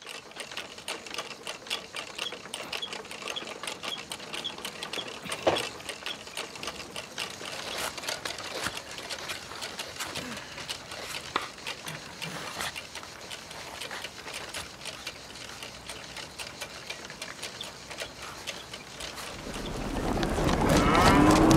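Rapid, irregular mechanical clicking and rattling, with one louder knock about five and a half seconds in. In the last couple of seconds the noise of a cattle herd swells and a cow begins to moo.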